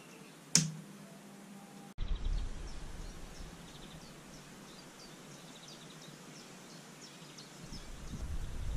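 A single sharp click, then a low hum. After that, outdoor ambience: small birds chirping over a low rumble that swells near the end and finishes in a thump.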